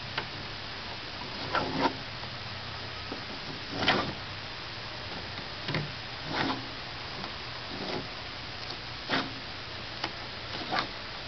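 Loose ends of red tie-down straps being pulled and knotted against a car's hood: irregular short swishes and rubs, the loudest about four seconds in.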